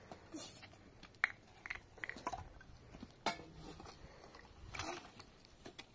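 A few light, scattered clinks and knocks, like metal or dishes being handled, the sharpest a little past three seconds in.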